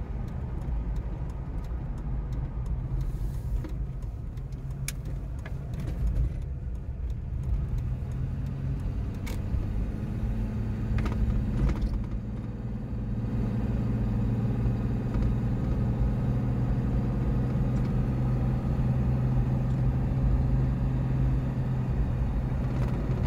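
In-cab sound of a 1995 Nissan Pathfinder WD21 on the road: its 3.0-litre V6 engine running over steady tyre and road noise, getting louder about halfway through as the truck speeds up. A few light clicks and rattles are heard along the way.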